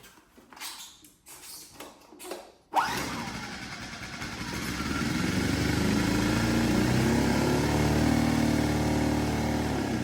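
Small engine pull-started after a drop of fuel was put on its air filter: a few seconds of handling noises, then it fires at once, almost three seconds in, and keeps running. It has not run in weeks and runs slightly laboured on its dry carburettor diaphragms, its note steadying and getting louder about two seconds after it catches.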